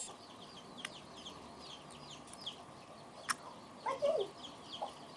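Three short, sharp clicks from clear slime being poked, over birds peeping in the background many times a second, with a lower call about four seconds in.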